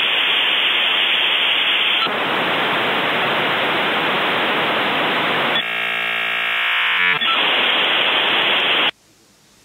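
Dial-up modem handshake sound effect: loud hissing static, broken by a buzzing stack of tones for about a second and a half, then the hiss again until it cuts off suddenly near the end.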